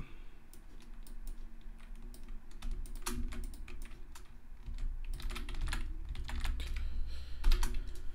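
Typing on a computer keyboard: irregular key clicks, some in quick runs, over a low steady hum.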